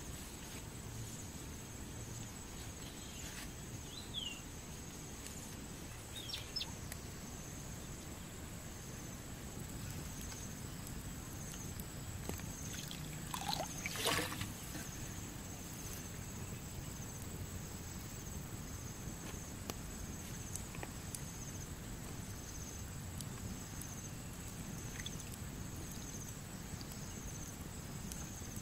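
Outdoor ambience: a steady high insect drone with a faint pulsing note, over a low rumble, with a few short chirps and one brief louder noise about halfway through.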